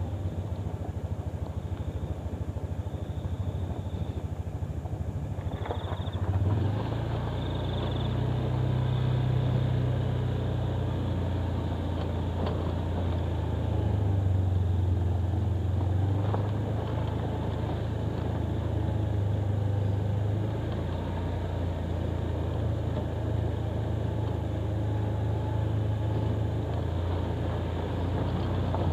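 Motorcycle engine running steadily while riding along a rough forest track. Its pitch shifts about six seconds in and again near twenty seconds.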